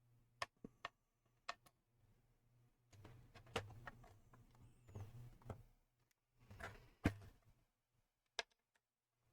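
Faint clicks and soft handling noise of a laptop's plastic casing and hinges being moved, with a few sharp clicks early and near the end and two short stretches of rubbing and clicking in between.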